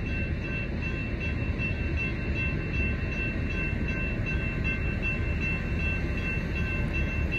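Railroad grade-crossing warning bell ringing steadily while the crossing gates lift, over a low rumble.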